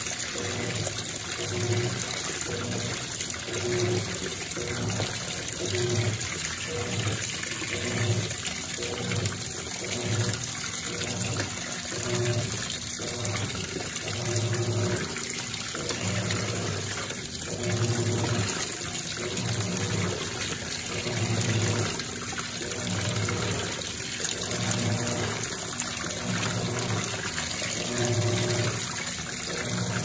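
Electrolux Perfect Wash Turbo LT12F top-loading washing machine agitating in the final stage of its rinse. Water sloshes in the tub and pours back in from the recirculation waterfall, over a low motor hum that pulses about once a second as the agitator swings back and forth.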